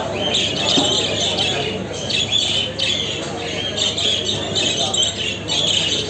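Many show budgerigars calling at once in their cages, a dense, continuous mass of overlapping high calls.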